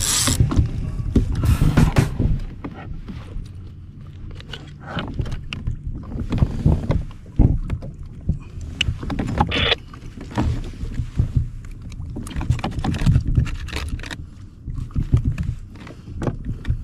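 Kayak on the open water: a steady low slosh and rumble of water and wind, with irregular knocks and bumps against the hull.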